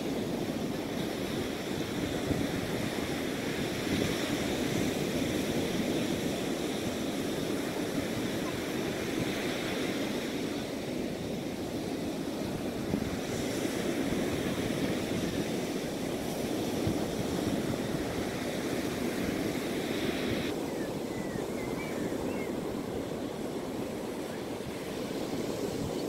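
Surf breaking and washing up on a sandy beach, a steady rush of waves, with wind buffeting the microphone.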